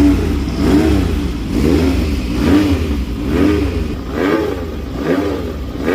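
Motorcycle engine revved over and over, the pitch rising and falling in quick blips a little under once a second, over a steady deep rumble.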